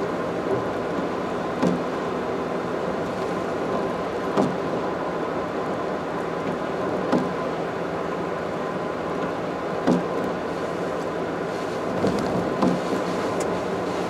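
Steady road and tyre noise of a car driving at expressway speed, heard from inside the car, with a short thump about every three seconds.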